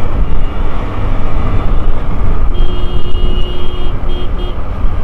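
Wind rushing over the microphone and a motorbike engine running during the ride. About two and a half seconds in, a vehicle horn sounds steadily for over a second, then gives two short toots near the end.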